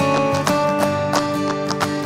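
Background music: an instrumental tune of held notes over a steady beat.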